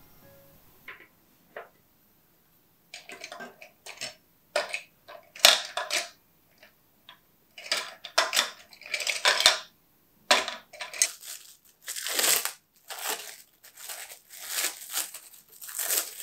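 Cookie cutters clattering and clinking as they are picked out of a metal tin and set down on the table, in irregular bursts. Near the end, plastic cling wrap rustles as the dough is unwrapped.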